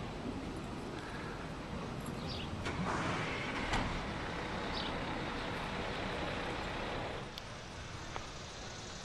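Steady outdoor background noise, a rushing haze that grows louder about three seconds in and drops back suddenly about seven seconds in.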